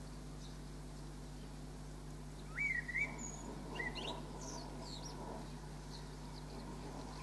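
Songbird calls: a short rising, wavering whistle about two and a half seconds in, followed by a few thin, higher notes, over a steady low hum.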